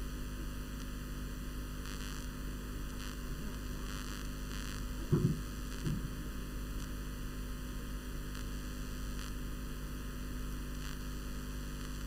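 Steady electrical mains hum with a background hiss, broken by two brief low sounds about five and six seconds in.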